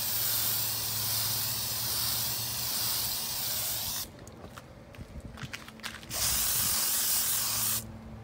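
Aerosol spray paint can hissing in a long burst that stops about four seconds in, then a second, shorter burst of about two seconds. A few light clicks fall in the gap between the bursts.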